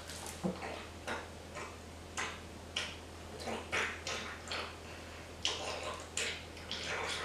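Drops of liquid falling onto a man's face and the floor, a string of short, irregular ticks about one or two a second, over a faint low hum.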